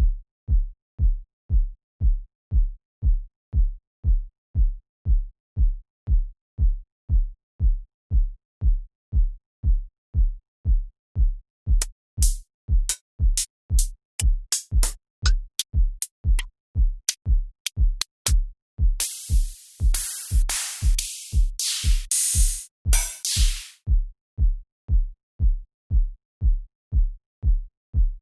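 Deep house drum pattern from FL Studio stock samples: a four-on-the-floor electronic kick drum about twice a second. About twelve seconds in, sharp high hi-hat ticks join it, and in the last third a run of loud noisy hits comes in for several seconds before the kick carries on.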